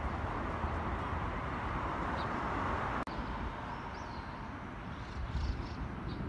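Outdoor ambience at a railway station platform: a steady hiss and rumble, with a few faint high chirps in the second half and a brief dropout about three seconds in.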